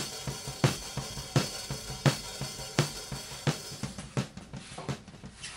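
Background music with a drum kit keeping a steady beat, a strong hit about every 0.7 seconds under sustained pitched tones, fading out near the end.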